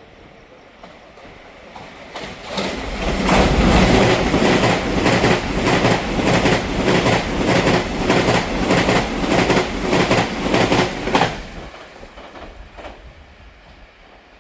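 TEMU3000 electric multiple unit passing the platform, its wheels clacking loudly and rhythmically over the rail joints' fishplates, about two to three clacks a second. It builds up about two seconds in, stays loud for some eight seconds and fades away near the end.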